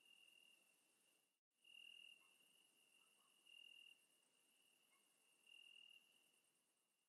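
Faint night ambience of crickets: a steady high trill that swells about every two seconds, with a fainter, rapid pulsing chirp higher above it. It drops out for a moment about a second and a half in.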